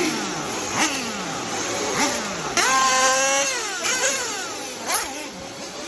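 Nitro RC car engines screaming at high revs, several cars passing in turn with the pitch falling as each goes by. About two and a half seconds in, one engine holds a high note for nearly a second, then drops away.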